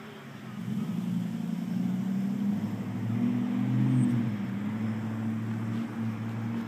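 A low rumble that swells about half a second in, is loudest around four seconds, then eases off.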